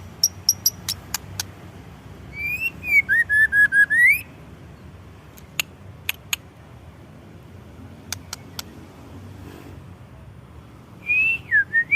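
A whistled phrase, gliding down and then holding a run of short level notes before rising, about two seconds in. Scattered sharp clicks come before and after it, and another curved whistle comes near the end.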